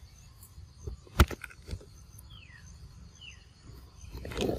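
Young macaque eating a ripe mango: a few wet clicks and one sharp tap about a second in, and a louder noisy burst of chewing and handling near the end. Two short falling bird chirps sound in the middle.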